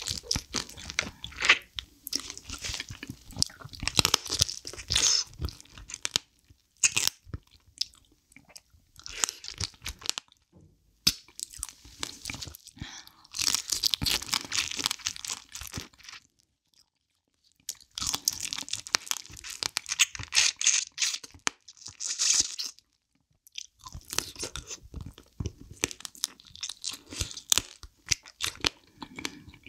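Close-miked chewing and crunching of soy-sauce marinated raw crab (ganjang-gejang), shell cracking and meat being bitten off in irregular wet crackles. It goes quiet briefly about halfway through and again a few seconds later.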